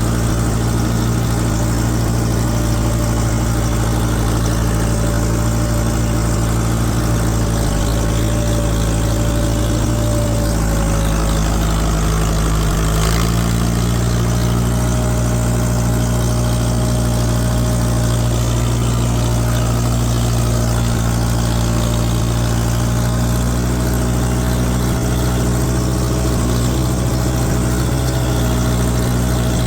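A farm tractor's engine running steadily at a constant speed, with a faint steady whine above it that rises slightly in pitch about halfway through.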